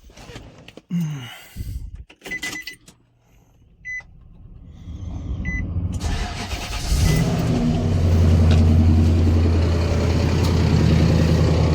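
Car engine restarted: a few clicks and three short electronic beeps, then the engine starts about seven seconds in and settles into a steady idle. It is a worn engine of about 300,000 km, whose light intermittent knocking the owner puts down to a mechanical fault, maybe the timing chain.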